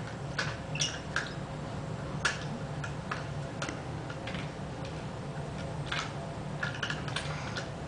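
Light clicks and taps of toy cars being picked up and set down against one another, coming at irregular moments and bunched together near the end, over a steady low hum.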